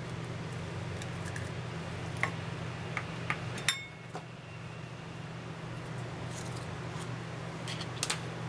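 Metal spoon tapping on eggshell and clinking against a ceramic bowl as half-boiled eggs are cracked open and scooped out: a few sharp clicks, one ringing clink about three and a half seconds in, and another group of clicks near the end, over a steady low hum.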